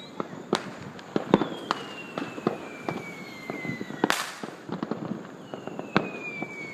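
Fireworks going off all around: scattered sharp bangs and pops, and a long whistle falling in pitch that ends in a louder burst about four seconds in. Another falling whistle starts near the end.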